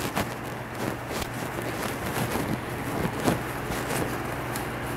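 Industrial upholstery sewing machine's gears and hook mechanism turned slowly by hand at the handwheel, with irregular soft clicks and the rustle of a rag wiping old grease off the moving parts.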